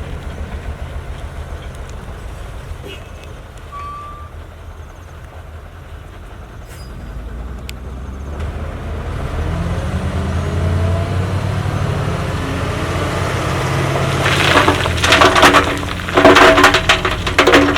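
Heavy earthmoving machine engine rumbling at low speed, then revving up with a rising pitch about halfway through. In the last few seconds comes loud, irregular crunching and clattering, typical of gravel being pushed and crushed.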